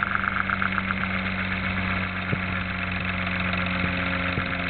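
Homemade Orbo-replica magnet motor running: its neodymium-magnet rotor, driven by two toroidal coils on 6 V DC, spins with a steady hum. A higher whine fades away over the first two seconds, and there are a few light clicks.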